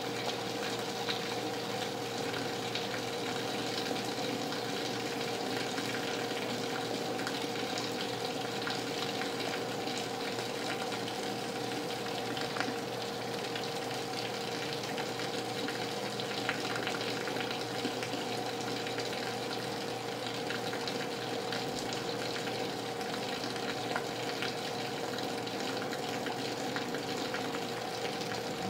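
Heavy rain falling steadily, with scattered close drops ticking and a steady low hum underneath.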